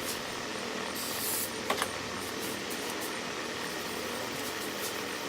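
A brief hiss of aerosol brake cleaner being sprayed, about a second in, over a steady background noise. A small click follows shortly after.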